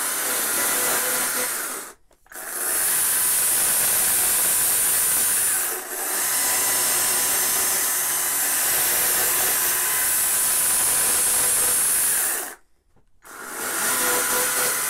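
Stihl battery-powered chainsaw running and cutting into wood, carving a trunk, with a high hiss of the chain and a steady motor whine. The saw stops briefly about two seconds in, again for about half a second near the end, and starts again each time.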